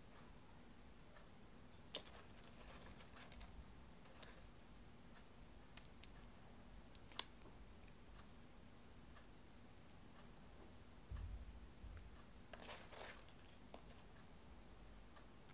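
Small plastic building bricks clicking as they are pressed together by hand, with short rattles of loose pieces. The clicks are sparse, the sharpest about seven seconds in, and there is a brief low thud shortly before a cluster of rattling near the end.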